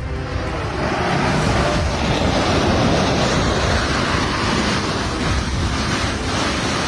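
Landslide coming down: rock and earth sliding, a steady rushing noise that swells about a second in.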